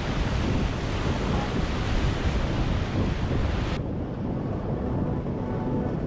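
Whitewater of a river rapid rushing around an inflatable raft, with wind buffeting the microphone. Nearly four seconds in, the rushing cuts off suddenly and soft background music with held notes takes over.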